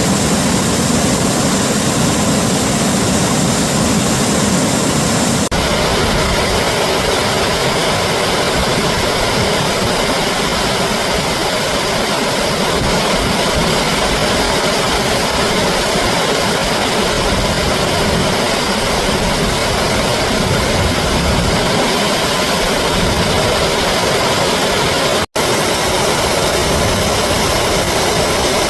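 Recording of flowing water played in reverse: a loud, steady rushing noise. Its tone changes about five seconds in, and it cuts out for a split second near the end.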